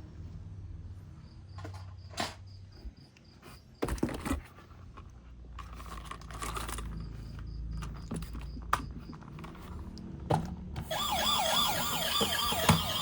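Scattered sharp clicks and knocks over a low rumble. About two seconds before the end a fast yelping emergency-vehicle siren starts, its pitch swinging rapidly up and down.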